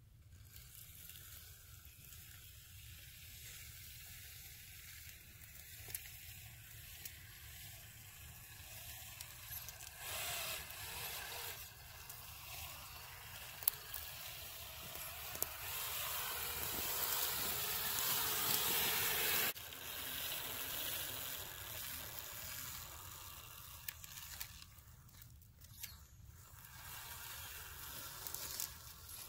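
Radio-controlled truck's tires churning through wet grass and shallow water: a steady splashing, brushing hiss that grows louder as the truck nears and cuts off abruptly about two-thirds of the way through.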